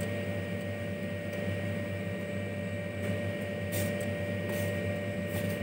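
Steady electrical machine hum with a constant thin high whine, and a few faint light ticks in the second half.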